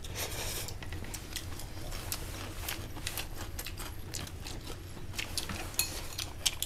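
Scattered light clicks and taps of utensils against dishes, irregular and close together, over a low steady hum.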